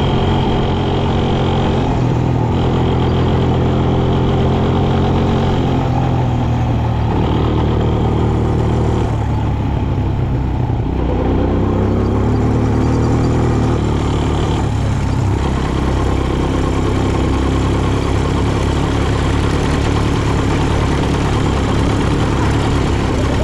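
Quad bike (ATV) engine running while being ridden, loud and continuous. Its pitch shifts up and down several times as the throttle changes.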